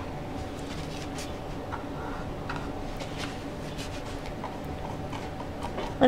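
Bristle paintbrush working oil paint on a canvas: faint, irregular scratchy ticks over a steady low room hum.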